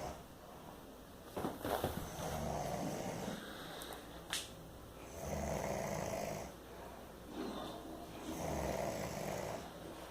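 A man snoring in slow, regular breaths, a loud snore about every three seconds. A few short clicks come about one and a half seconds in, and a single sharp click a little after four seconds.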